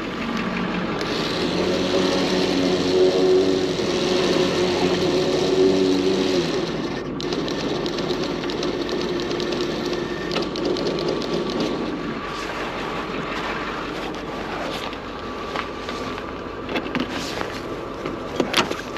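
Tow truck running: a steady mechanical drone with a pitched hum that stops about six and a half seconds in, and a few sharp knocks near the end.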